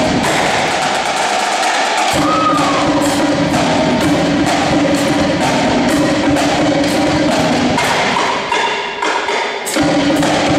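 High school marching drumline of snare, tenor and bass drums playing a fast, steady percussion cadence. The low bass drum notes drop out briefly twice, about a second in and near the end.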